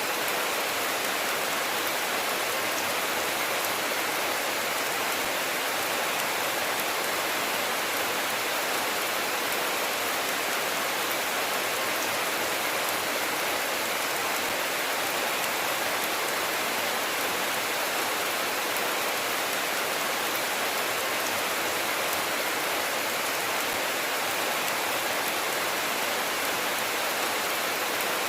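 Steady rain falling: a dense, even hiss of drops that holds at one level, with no thunder.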